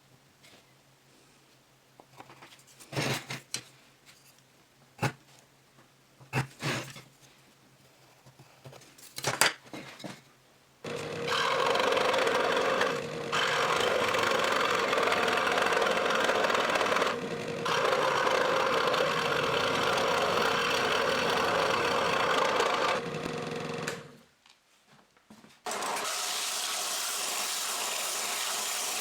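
Several knocks and clicks of wood being handled, then a power tool cutting or working wood: it runs steadily for about thirteen seconds with two brief dips, stops, and a second, hissier machine noise starts a couple of seconds later.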